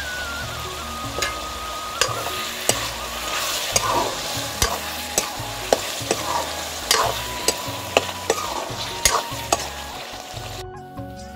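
Food sizzling as it fries in a pan while being stirred, with a spatula knocking against the pan many times at an uneven rhythm. The frying stops abruptly shortly before the end.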